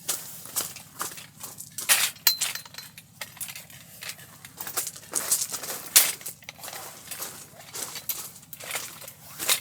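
Irregular clinks and knocks of hard objects being handled, a few sharper than the rest, the strongest about two seconds in, six seconds in and near the end. One clink about two seconds in leaves a brief high ring.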